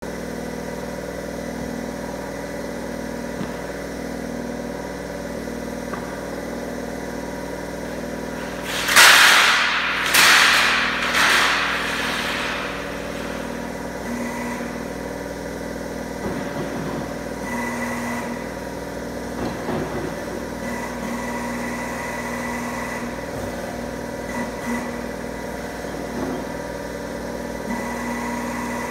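Angle bar roll-bending machine running with a steady mechanical hum. About nine seconds in come three loud bursts of hiss, each fading over about a second, and later a few short metallic knocks as the bar is worked.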